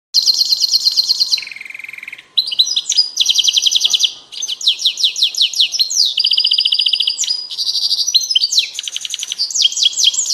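A caged finch singing loudly: long trills of rapidly repeated high notes, each trill lasting about half a second to a second before the next begins on a different note, with a brief break about two seconds in.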